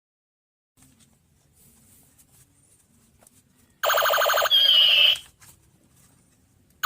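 Toy sound gun firing its electronic effect: a loud, rapid pulsing buzz that turns into a falling laser-like tone, about a second and a half in all, after faint handling noise. The same effect starts again at the very end.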